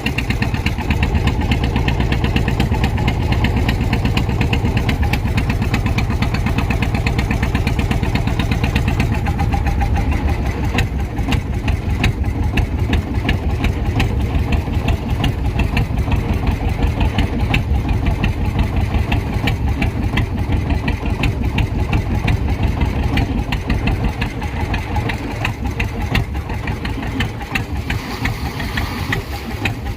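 A fishing boat's engine running steadily, its deep low end easing off about ten seconds in.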